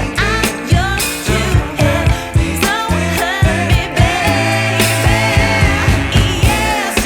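Background pop music with a steady beat and a singing voice.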